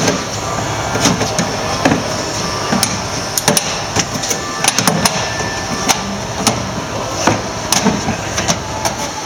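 A metal bar jabbed and levered against the lid of a hasp-secured steel cash drawer in a forced-entry attempt, giving repeated irregular metal knocks and scrapes, about one or two a second.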